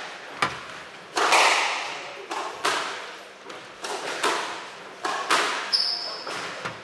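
Squash rally: sharp cracks of the ball off the rackets and the court walls, coming every half second to a second, each ringing on in the enclosed court. A short high squeak of a shoe on the wooden floor comes about six seconds in.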